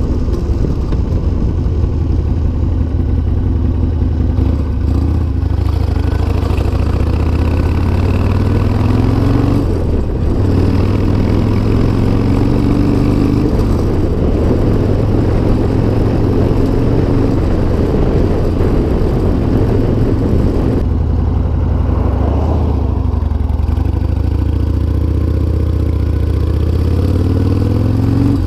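1996 Harley-Davidson Sportster XL1200 Custom's air-cooled 1200 cc V-twin running under way, heard from a camera mounted on the bike. The revs climb in several pulls with short breaks between them through roughly the first fifteen seconds, hold steady, ease off a little past the twenty-second mark and climb again near the end.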